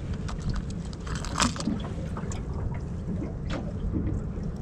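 Steady low rumble of a small aluminium boat on open water, with a few light clicks as a metal lure and its hooks are handled.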